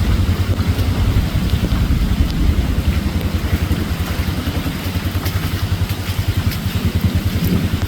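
An engine running steadily, a low, even, rapid throb.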